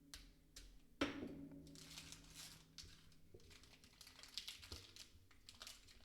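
Foil trading-card pack wrapper being crinkled and torn open, soft rustling, with a light knock about a second in.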